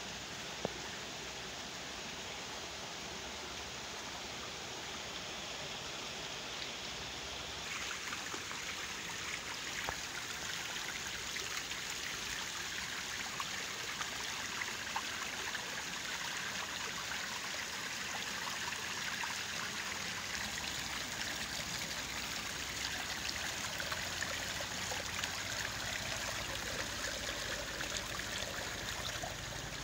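Rainwater runoff flowing in a thin sheet down stone steps and across stone paving, spilling over each step edge with a steady rushing stream sound. It grows louder and brighter about eight seconds in, and there is one brief sharp tap just under a second in.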